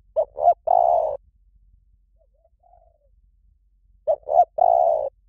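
Spotted dove cooing its three-note call twice, about four seconds apart: two short coos and then a longer one. A fainter coo sounds between the two calls.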